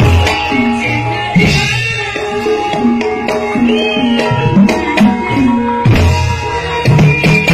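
Live Banyumasan-style Javanese gamelan music: kendang hand drums playing a quick rhythm over ringing metallophones, with a woman singing.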